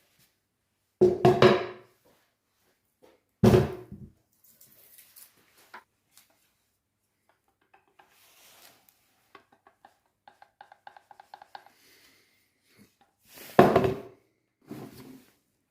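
A few heavy clunks with a short ringing tail, about a second in, about three and a half seconds in and twice near the end, with a quick run of light ringing taps in between.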